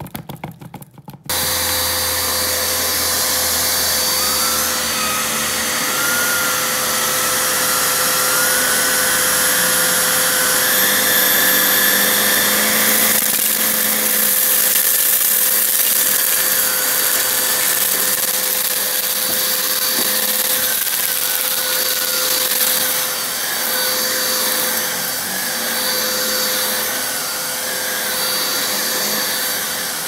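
Dirt Devil Razor Pet bagless upright vacuum cleaner switched on about a second in after some clicking and handling, then running steadily over carpet with a constant motor hum. A thin wavering whistle rides on top between about five and thirteen seconds in.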